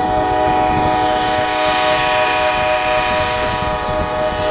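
A train's horn blowing one long, steady blast over the rumble of the moving train.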